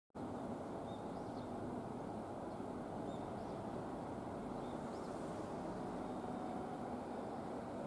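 Steady outdoor background noise, mostly a low rumble, cutting in suddenly at the start, with a few faint short high chirps scattered through the first half.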